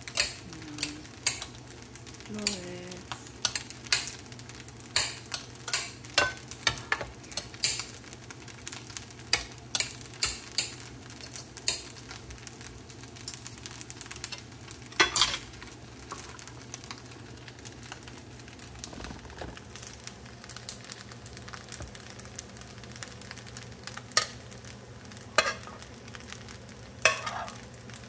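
Metal fork tines clicking and scraping against a ceramic plate as it chops soft cooked cauliflower, a sharp tap every second or so, over a low steady hum. Near the end the taps come faster as the plate's contents are scraped off into the frying pan.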